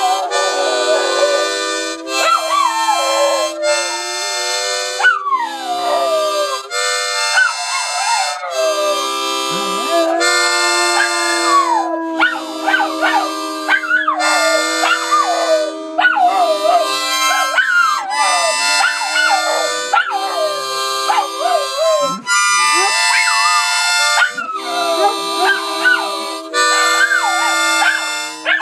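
A harmonica playing held chords, changing every second or two, while a Doberman howls along. Its howls slide up and down in pitch over the notes.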